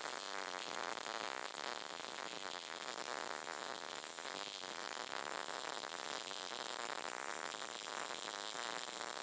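MIG welding arc crackling steadily as a bead is run, a dense even sizzle.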